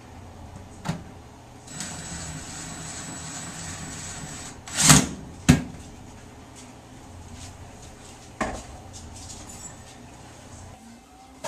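Household knocks and clunks: a light knock early, a steady hiss for a couple of seconds, then a loud clatter and a sharp knock about five seconds in and another knock a few seconds later.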